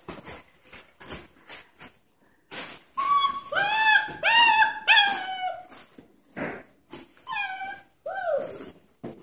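Puppy whining: a run of four high-pitched cries a few seconds in, each rising then holding, then two shorter falling cries near the end. Light scuffling noises come before them.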